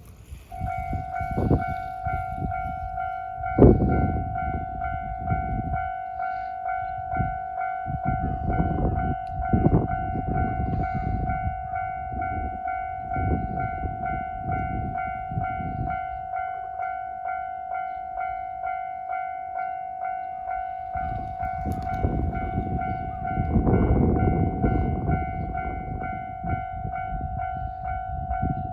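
Japanese railway level-crossing warning bell starting about half a second in, then ringing on as a quick, even series of dings. Irregular low rumbles run underneath.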